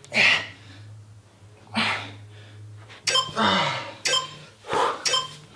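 A man exhaling sharply and forcefully as he does crunches, one breath per repetition, about six, coming faster toward the end, one or two pushed out with a strained grunt. A low steady hum runs underneath.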